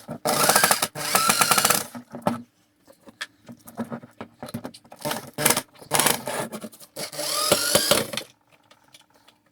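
An electric drill run in repeated bursts, its motor whine rising in pitch each time it spins up, with shorter stops and starts in between.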